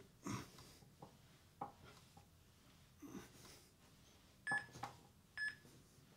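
Three short electronic beeps from a microwave oven's keypad, coming in quick succession about four and a half seconds in. A few faint soft sounds come before them.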